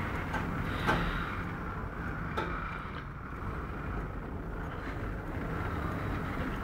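Steady low background rumble of a large hallway, with a couple of faint clicks or knocks, one about a second in and another about two and a half seconds in.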